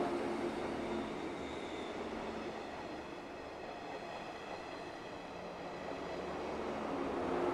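JR East 185 series electric train running past, a steady rumble of wheels on rail with some steady tones, easing a little midway and growing louder again near the end.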